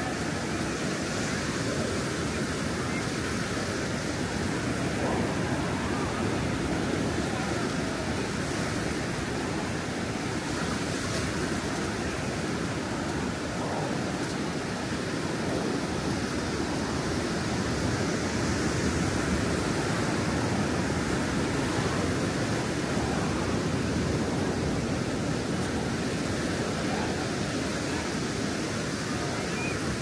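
Ocean surf washing onto a sandy beach: a steady rushing wash that swells a little now and then.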